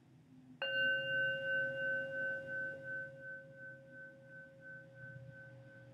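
A single strike of a meditation bell with a singing-bowl-like tone, about half a second in. It rings out in a long, slowly fading tone with a gentle pulsing waver, signalling the end of the meditation sitting.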